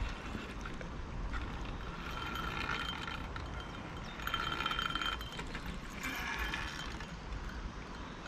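Fishing reel clicking and whirring in several bursts of about a second each while a hooked fish pulls against a hard-bent rod, over a low steady rumble.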